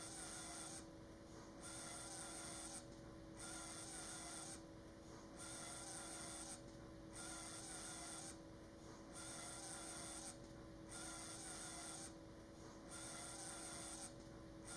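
Faint rhythmic hissing pulses, about one every two seconds, each lasting about a second, over a low steady hum.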